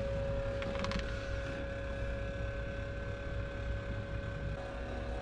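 Steady machine hum: a low rumble with a constant mid-pitched whine, as from a running electric motor, with a couple of faint clicks about a second in.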